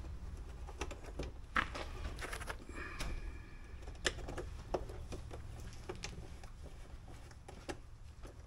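Scattered small clicks and taps of plastic and a T20 Torx screwdriver as a tail-light mounting frame is pushed into a motorhome's rear panel and screwed in, over a low steady rumble.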